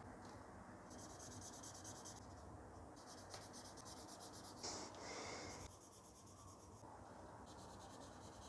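Black marker pen scribbling back and forth on squared notebook paper to fill in grid cells: faint, quick scratching strokes in three spells, the loudest about five seconds in.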